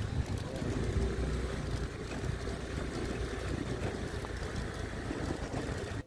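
Motorbike riding over a rough, stony dirt road: a steady engine rumble mixed with the irregular rattle and knocking of the bike over loose stones.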